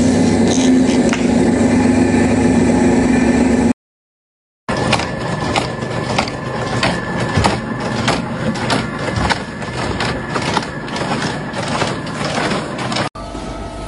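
A small drill press running steadily as its bit bores into wood, then after a brief silence a clay-brick production line clattering, with repeated irregular knocks and clicks as the extruded clay is cut into hollow bricks.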